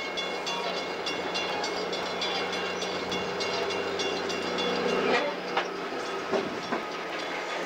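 Coaster commuter train passing close by: bilevel passenger cars rolling with wheel clicks over the rail joints and a steady low hum with high thin whining tones, then its diesel locomotive going by with a few louder clicks after about five seconds.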